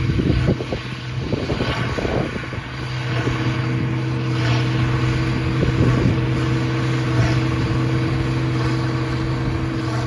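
International 5488's 466 cubic inch turbocharged six-cylinder diesel running steadily under load while pulling a New Holland BB940 big square baler that is baling straw. A steady engine hum runs throughout, with brief louder surges from the working machinery every second or two.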